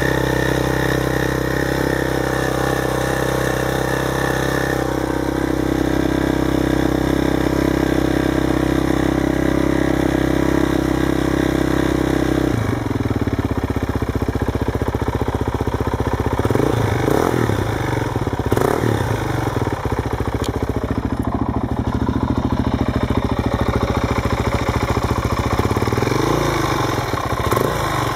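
Suzuki DR-Z400 single-cylinder four-stroke engine running, first at a steady raised idle, then dropping abruptly to a lower, choppier idle about twelve seconds in, with a few brief revs later on. The engine carries a small ticking noise that the owner finds worrying.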